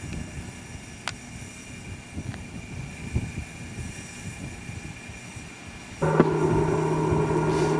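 Low rumbling background noise. About six seconds in, a warning-siren loudspeaker abruptly starts a loud, steady electronic tone with several overtones, which holds without changing pitch.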